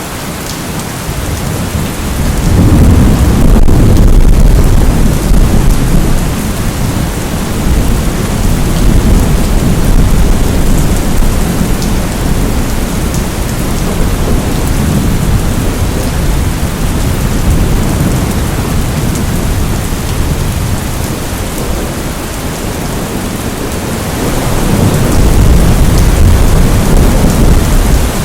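Steady rain falling, with low rolling thunder rumbles that swell about two seconds in and again near the end.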